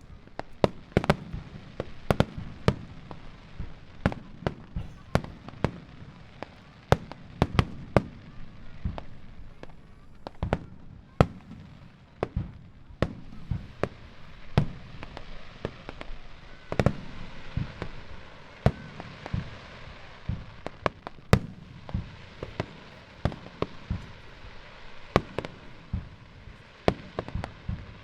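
Super jumbo starmine: aerial firework shells bursting in rapid, irregular succession, dozens of sharp bangs with echoing tails. A steady hiss rises between the bangs through the middle.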